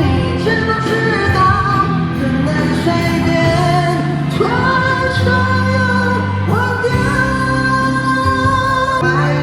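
Pop song with singing: long held vocal notes over a steady instrumental accompaniment.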